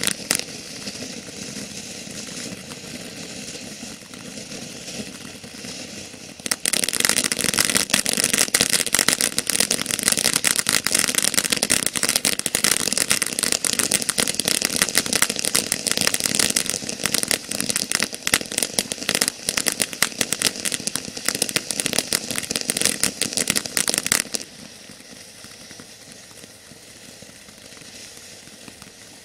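Jake's Fireworks 'Frosty Mug of Beer' ground fountain spraying sparks with a dense crackle. It jumps much louder about six seconds in and falls back to a softer crackle near the end.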